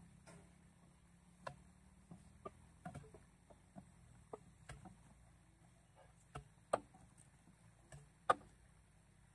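Scattered, irregular light clicks and knocks from hand work with hoses and tools at a drilling rig, over a faint low hum.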